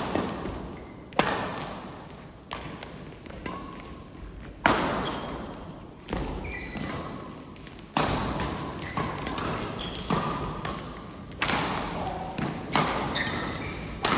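A run of sharp hits, roughly one every one to two seconds at an uneven pace, each ringing on in a large hall: a rally of ball or shuttle strikes in a doubles court match.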